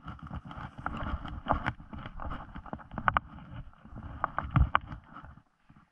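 Boots crunching and swishing through deep snow at a quick walking pace, with clothing rustling and brushing against snowy branches. The sound is a jumble of irregular crunches and soft scrapes and stops near the end.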